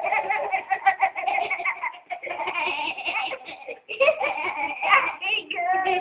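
Young children laughing and giggling hard in quick, choppy bursts while being shaken about, with one longer held cry near the end.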